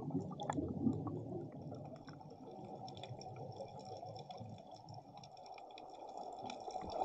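Muffled underwater ambience: a dull low rushing with faint scattered clicks and crackles.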